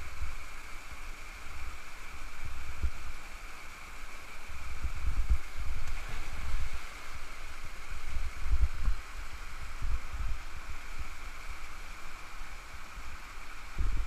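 Small stream cascade pouring over rocks into a pool: a steady rush of water, with irregular low buffeting from wind on the microphone.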